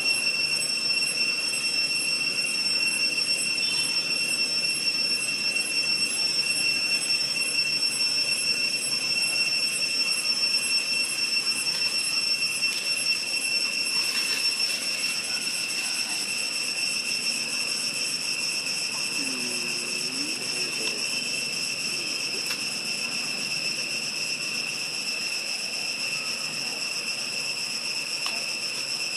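Cicadas droning steadily in one high, even buzz, a little softer in the second half. A few faint short calls sound underneath about two-thirds of the way in.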